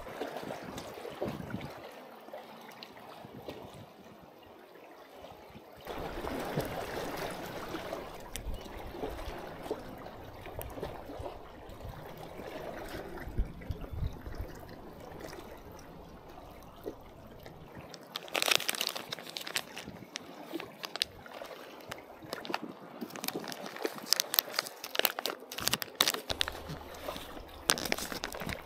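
Sea water sloshing and gurgling among concrete tetrapods at the water's edge. From about two-thirds of the way in, a plastic bait packet crackles and crinkles sharply as it is handled and opened.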